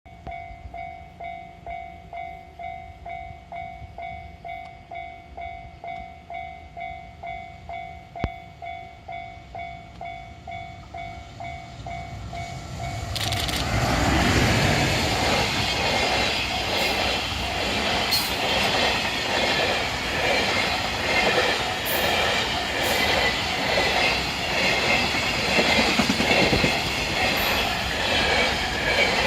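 Japanese level-crossing warning bell ringing in a steady repeated ding, about one and a half a second. About thirteen seconds in, a freight train hauled by an EF210 electric locomotive comes over the crossing: a loud rumble with the rhythmic clatter of wagon wheels over rail joints.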